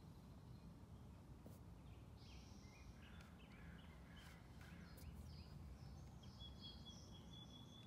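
Near silence: faint outdoor background with a few faint bird chirps now and then.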